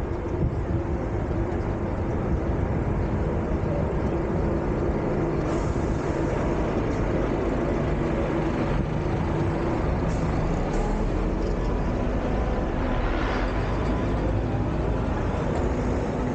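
Road traffic passing close by: engines of cars and buses running with a steady hum and rumble, and a brief hiss about three-quarters of the way through.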